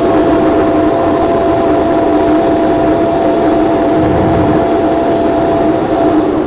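Electric drift kart's ChargedUp3D v3 motor whining steadily at full throttle near its top speed of about 44 mph, over a rough rushing noise. The high whine cuts off near the end.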